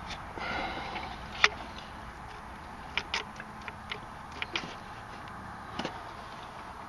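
Small metal parts clicking and clinking as hands work the starter pinion gear on its shaft and fit a pulling tool to it: a short scrape, then about half a dozen sharp, separate ticks, the loudest about a second and a half in.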